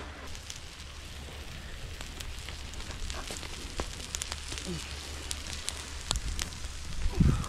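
Wood fire embers crackling, with a faint steady hiss and scattered sharp pops as clams cook in a shell on the coals. A louder low rumble comes in near the end.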